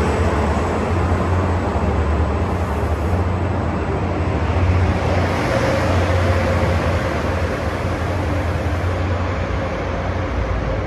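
A train running past with a steady, loud rumble; a faint steady whine joins about halfway through.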